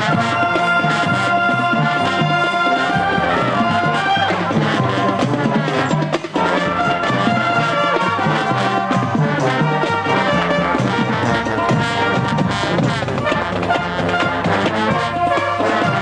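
Marching band playing: brass including sousaphones and trumpets, with flutes, clarinets and saxophone, over front-ensemble cymbals and drums. The music runs without a stop, easing off briefly about six seconds in.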